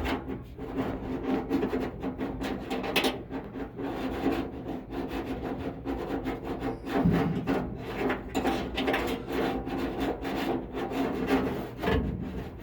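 Irregular scraping, rubbing and knocking of a screwdriver and a loose steel seat-belt mounting plate being worked around inside the sheet-metal cab of a 1974 Ford F100, to line the plate up with its bolt hole.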